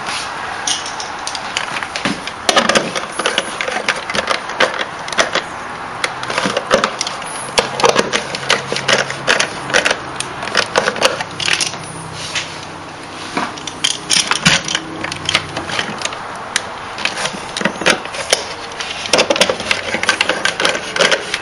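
Hands handling a plastic fan and its power cord inside a wooden box: irregular clicks, knocks and rustles, over a steady background hiss.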